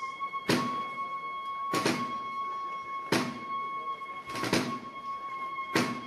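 Procession bugle (corneta) holding one long, steady high note during a solo, over slow drum strokes about every 1.3 seconds.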